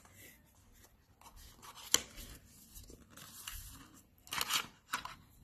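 Small paperboard box being opened by hand: the flap and inner tray rustle and scrape, with a sharp click about two seconds in and a louder scraping rustle near the end.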